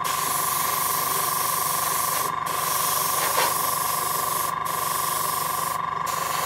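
An airbrush spraying paint with a steady hiss that cuts out briefly three times as the trigger is let off and pressed again. Under it, a cheap AS186 hobby compressor runs with a steady hum and a regular low pulsing.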